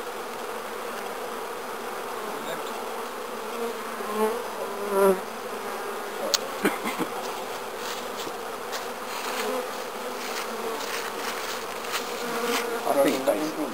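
Honeybees buzzing steadily around an open hive as a frame thick with bees is lifted out, with a sharp knock about six seconds in.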